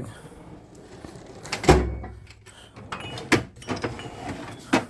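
Clunks and rattles from handling things in a metal tool chest: a heavy thud about two seconds in, then sharper clacks near the middle and again near the end.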